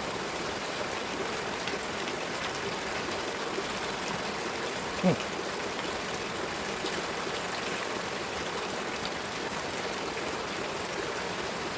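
Steady rain falling, an even hiss of water. A brief short vocal sound comes about five seconds in.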